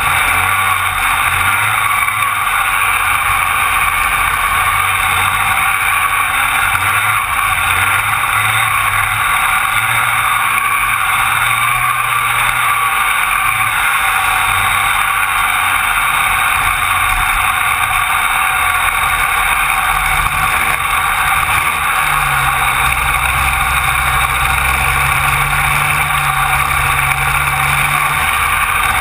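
Rotax Max 125 cc two-stroke kart engine running at race speed, a loud steady drone heard from a camera mounted low on a kart, with other karts in the pack close by.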